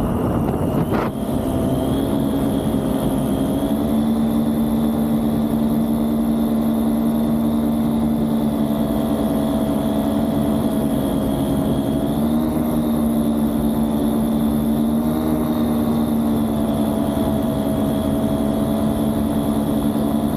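Vittorazi Cosmos 300 two-stroke engine and three-blade propeller of a paramotor trike running steadily in flight. There is a short click about a second in and a slight rise in engine pitch about twelve seconds in.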